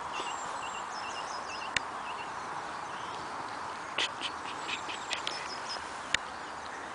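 Dog tearing and chewing grass: a few sharp clicks and snaps, one a little under two seconds in, a cluster about four to five seconds in, and another near the end. Small birds chirp repeatedly, mostly in the first two seconds, over a steady outdoor hiss.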